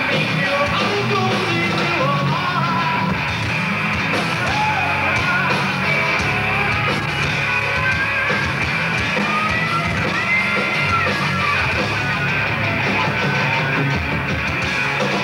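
A live rock band playing loud: electric guitars and bass over drums, with a singer shouting and singing into the microphone.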